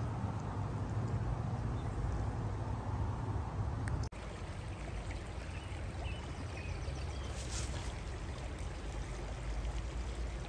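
Steady rushing of running water, broken by a sudden cut about four seconds in, after which the same kind of water noise carries on.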